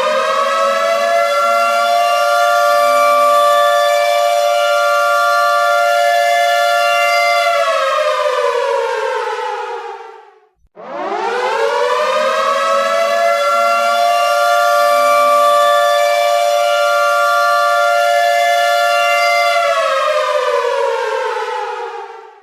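Air raid siren holding a steady wail, winding down in pitch about eight seconds in and fading briefly, then winding back up to a second long, steady wail that falls away again near the end.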